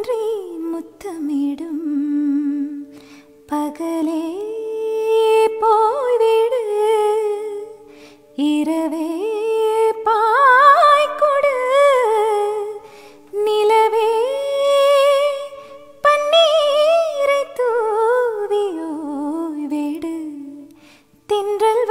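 A Tamil film-style song's humming passage: a voice hums a gliding melody without words in phrases of a few seconds, over steady held accompaniment tones.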